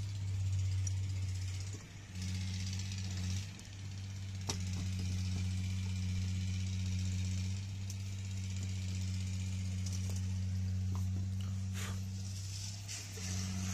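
A steady low mechanical hum, like a machine running in the background, with a few light metallic clicks and taps as an O-ring and parts are fitted onto a hydraulic pump housing.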